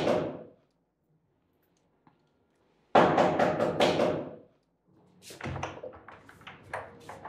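Knocking on a wooden front door: a quick run of about five knocks about three seconds in, the end of an earlier run just at the start. Near the end, fainter clatter from the door latch as the door is opened.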